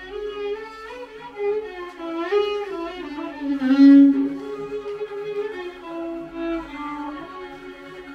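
Violin taksim, a free improvisation in the Turkish makam Hüzzam: a single melodic line of held notes linked by slides and ornaments.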